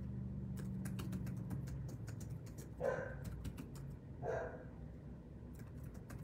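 A dog barks twice, about three seconds in and again a second and a half later, over scattered light clicks like typing on a keyboard.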